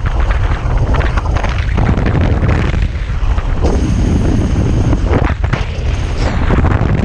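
Heavy wind buffeting on the microphone, a loud continuous low rumble, with water rushing and splashing along the hull of a Tornado racing catamaran sailing fast; the rushing surges up and down every second or two.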